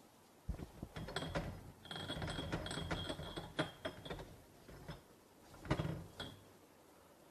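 Coiled wild asparagus being pushed into small glass jars by gloved hands: scraping and rustling with many small clicks and light clinks against the glass. It comes in uneven spells starting about half a second in, with a last short spell near six seconds.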